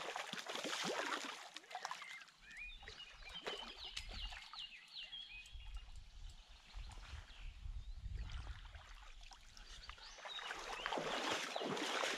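Shallow river water splashing as a fish is released by hand, then a small bird's short chirping calls between about three and five seconds in. Near the end comes the splashing of legs wading through shallow water.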